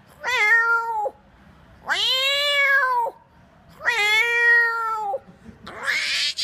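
A man imitating a cat's meow: three long, drawn-out meows, each rising and then falling in pitch. Near the end a harsher, breathier call begins.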